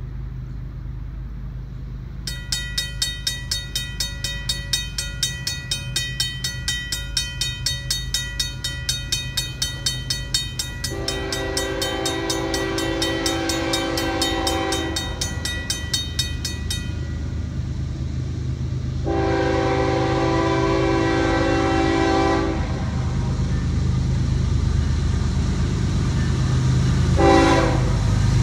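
Grade crossing bell starts a couple of seconds in, ringing in rapid repeated strikes as the crossing activates, and stops about two-thirds of the way through once the gates are down. Over it, the approaching Norfolk Southern ES40DC lead locomotive blows its horn for the crossing: two long blasts, a short one, and the start of another at the end. Underneath is a low diesel rumble that grows louder as the train nears.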